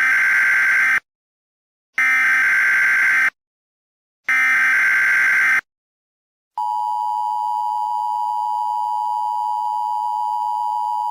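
US Emergency Alert System tones: three loud bursts of the SAME digital header's screeching data, the first already under way, about two seconds apart. About a second after the last burst, the steady two-tone EAS attention signal begins and holds.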